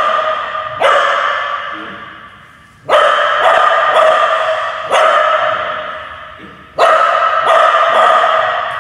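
A dog barking in repeated volleys of quick barks, four volleys in all, each trailing off in a long echo.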